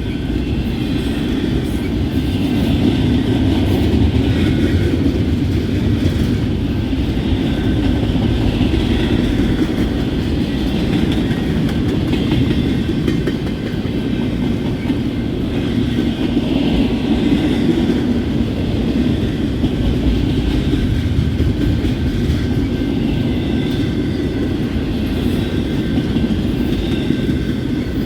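A train rolling past on the rails: a steady, loud sound of wheels and cars on track that keeps on without a break, with faint high tones above it.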